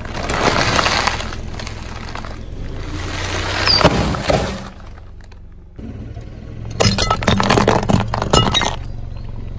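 A car tyre rolling over a sealed bag of crunchy snacks, the bag crinkling and crackling as it is squashed, with sharp cracks just before four seconds as it gives way. Then a dense run of crunching and cracking for about two seconds as a tyre crushes something brittle.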